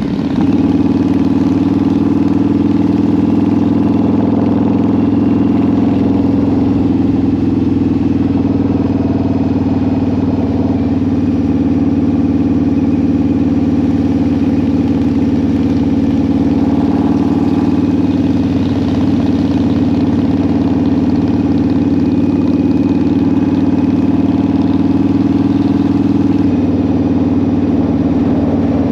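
Harley-Davidson V-Rod's 1131 cc water-cooled V-twin running steadily while the motorcycle cruises.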